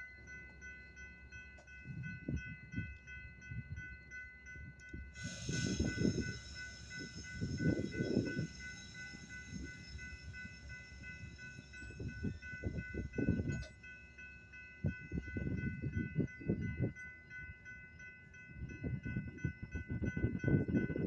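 Railroad grade-crossing bell ringing steadily as a Metra commuter train passes, with the train's wheel and rail noise starting about five seconds in.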